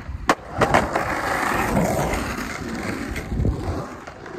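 Skateboard coming down a set of concrete stairs: one sharp clack as the board hits the ground, two quicker clacks just after, then its wheels rolling on pavement for a few seconds and fading out.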